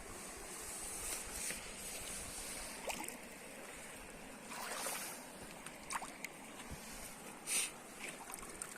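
Flowing river water, a steady rush, with a few brief louder noises over it.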